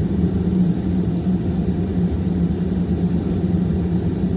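Car heard from inside the cabin: a steady low rumble with a constant hum.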